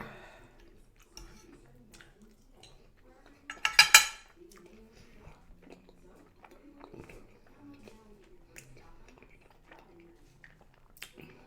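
Quiet chewing and mouth sounds, broken about four seconds in by a brief burst of clinking tableware, the loudest sound here.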